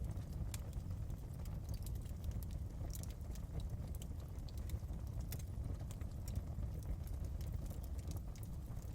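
Wood fire burning in a fireplace, a steady low rumble of flames with irregular sharp crackles and pops.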